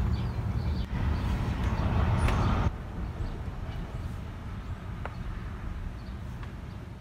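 A low, steady rumble of background noise, loud for the first two and a half seconds and then dropping suddenly to a lower level, with a few faint clicks.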